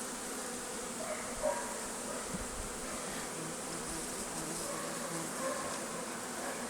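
Honeybees buzzing steadily around a hive entrance, the many overlapping wingbeats of a colony that is fending off robber bees.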